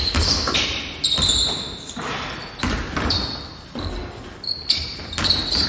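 Basketball bounced on a hardwood gym floor in irregular dribbles, each bounce echoing in the hall, with short high sneaker squeaks between them.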